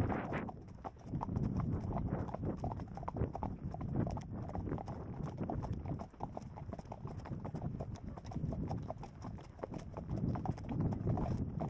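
Horse hooves clip-clopping on a sandy dirt track: a run of irregular hoofbeats from the ridden horse and the horses nearby. A low rumble swells and fades underneath.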